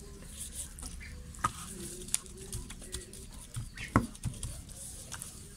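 Hands rubbing and patting a flour and corn flour coating onto a butterflied milkfish in a bowl: soft irregular rustling and patting with a few sharp clicks, the loudest about four seconds in.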